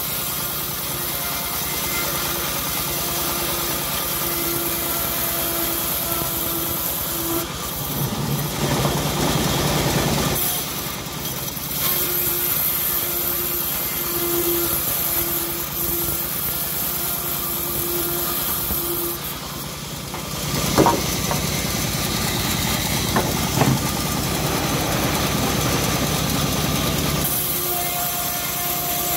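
Homemade bandsaw mill running steadily, its blade ripping lengthwise through hard johar wood planks in several passes, with two sharp knocks about two-thirds of the way through.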